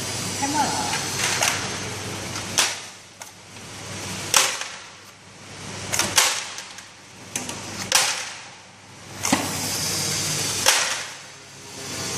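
Flat-top labeling machine running with its conveyor carrying round plastic lids under the label head, giving a sharp snap every second or two over a running mechanical noise that swells and fades between the snaps.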